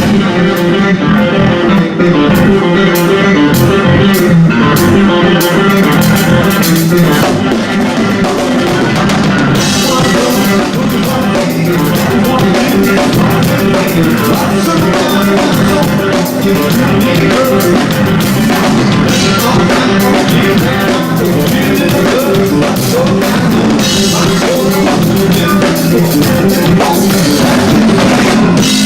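Rock band playing live: drum kit keeping a steady beat under guitar and bass, loud throughout.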